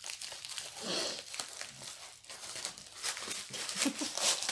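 Diamond painting kit packaging crinkling and rustling as it is handled, in a run of small irregular crackles.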